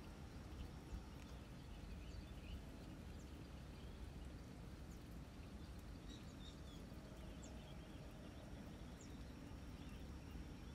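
Faint outdoor ambience: a steady low rumble with scattered small bird chirps. A thin, steady high tone drops out about a second in and returns after the middle.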